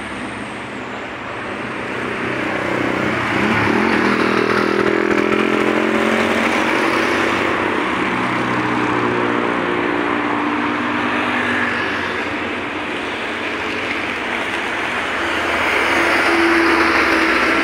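Road traffic passing close by: cars and motorcycles going by with tyre noise and engine hum. It gets louder about three seconds in, and again near the end as a bus passes.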